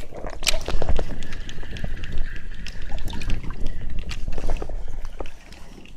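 Water splashing and sloshing close by in short irregular bursts, as around a float tube moving on the water.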